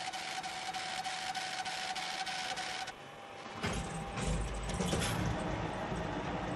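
Automated warehouse handling machinery running: a steady whine with a rapid, even ticking, then, about three seconds in, a lower motor rumble.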